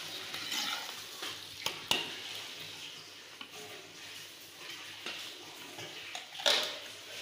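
Sliced onions frying in mustard oil in a clay pot, a steady sizzle, while a steel slotted spoon stirs and scrapes through them. There are a few sharp spoon clicks about two seconds in and a louder clatter near the end.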